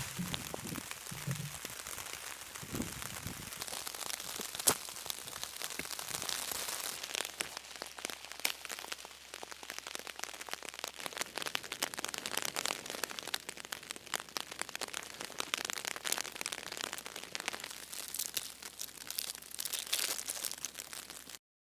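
Rain falling on a tarp overhead: a dense, irregular spatter of drops, with one sharper tap about five seconds in. The sound cuts off abruptly near the end.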